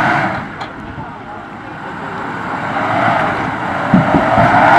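A vehicle engine revving, its pitch dipping and then climbing steadily, with a thump about four seconds in.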